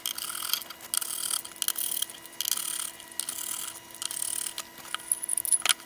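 Small screws being turned out of a steel instrument case with a screwdriver: scratchy turning in several short stretches, with light metallic clicks and ticks.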